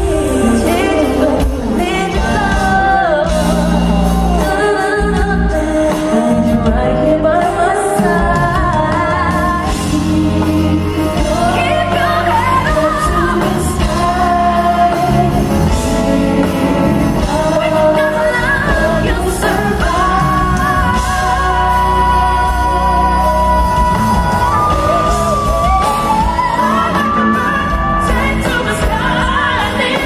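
A woman's lead vocal sung live over band accompaniment in a large hall, a slow pop ballad with melismatic runs and a long held high note about two-thirds of the way through.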